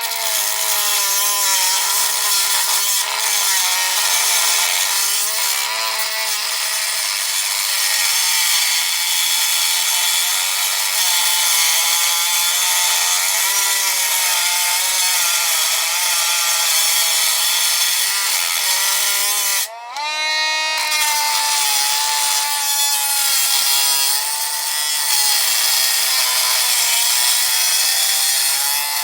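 Power tool's abrasive cut-off wheel grinding through a Master Lock padlock's shackle, the motor whining with its pitch sagging and wavering under the load. About twenty seconds in it briefly drops off, then spins back up with a rising whine and keeps cutting.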